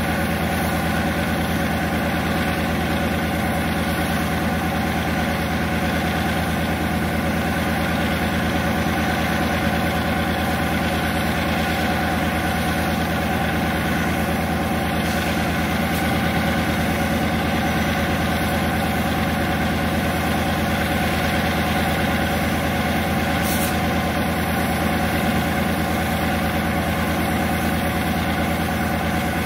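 Diesel locomotive idling steadily, an even engine hum that holds the same pitch throughout.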